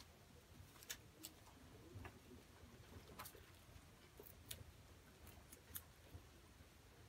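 Guinea pigs feeding at a wooden wheel feeder: faint, scattered sharp clicks and crunches over near silence.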